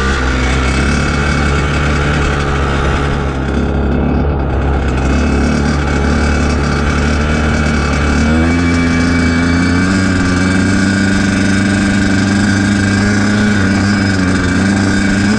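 Dirt bike engine running loud and steady under the rider's throttle, its pitch stepping up about halfway through and holding higher.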